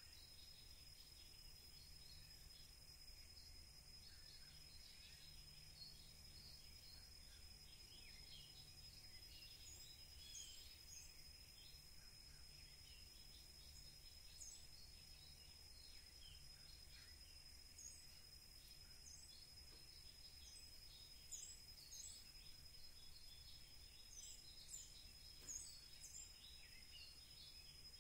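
Near silence: faint outdoor ambience of scattered small bird chirps, busier in the second half, over a steady high whine and a low hum.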